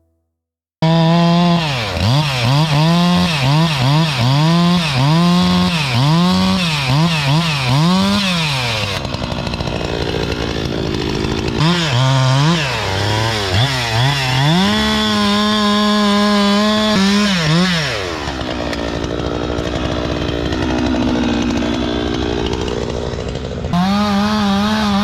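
Gas chainsaw running: the throttle is blipped so the revs rise and fall about once a second for several seconds, then it is held at high revs, and later the engine note turns rougher and lower.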